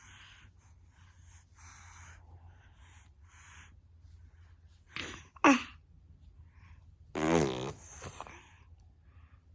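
An 11-month-old baby sneezes about five seconds in: a short catch of breath, then one sharp, loud burst. About two seconds later a voice follows with a falling pitch.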